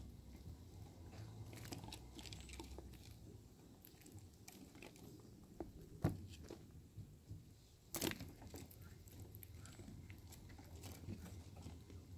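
Chipmunk eating a strawberry: small clicking bites and chewing on the juicy fruit, with a sharp knock about six seconds in and a short louder scrape about two seconds later.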